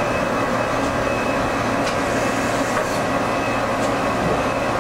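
Cincinnati-Milacron 18C CNC turning center running, its spindle turning the 18-inch three-jaw power chuck: a steady mechanical hum with a faint high whine and a few faint ticks.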